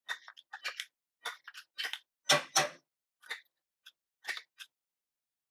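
Chopped fresh parsley being scraped from a bowl into a small saucepan with a utensil: a dozen or so short, irregular scrapes and rustles.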